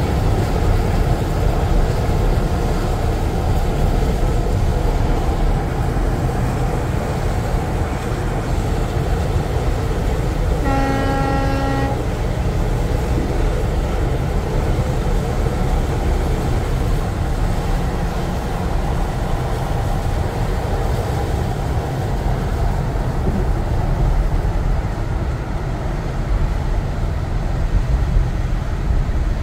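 Steady loud, low rumble of heavy snowplow trucks and road noise, with wind buffeting the dash camera's microphone. About eleven seconds in, a single horn blast from a plow truck sounds for about a second.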